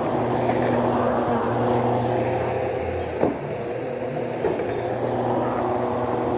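Vacuum cleaner motor running steadily with a hum of several steady tones, and a brief knock about three seconds in.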